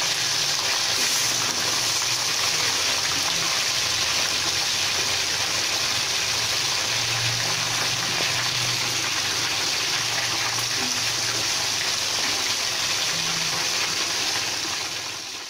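Chicken pieces coated in galangal spice paste deep-frying in a wok of hot oil: a steady, loud sizzle of bubbling oil that fades out near the end.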